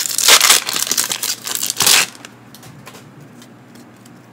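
A Pokémon booster pack's foil wrapper being crinkled and torn open, loud crackling that stops about two seconds in.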